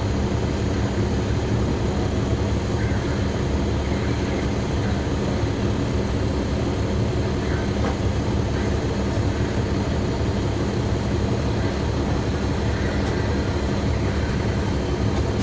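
Caterpillar C13 ACERT diesel engine of a NABI 40-SFW transit bus running at a steady pace, heard from the rear seats inside the bus with a continuous low drone and cabin noise.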